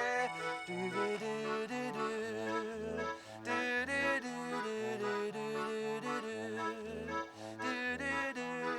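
Concertina playing an instrumental passage: low bass notes alternating with chords in a steady rhythm.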